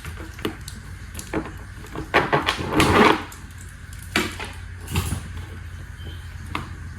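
Handling noise from unboxing a rifle: scattered clicks and knocks, with a louder rustling scrape of packaging about two to three seconds in.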